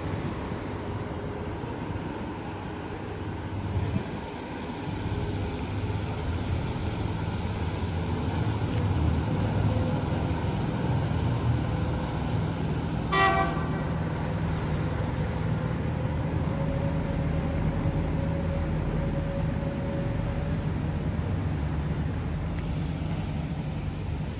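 A tour boat's engine running with a steady low drone, and a single short horn toot about halfway through.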